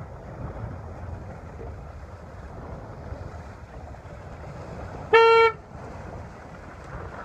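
One short horn blast of about half a second, about five seconds in, over steady wind noise on the microphone: a finish horn sounding as a boat crosses the finish line of a sailboat race.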